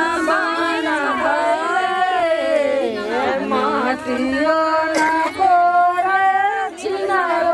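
A group of women singing a traditional wedding song together, unaccompanied, with long held and sliding notes.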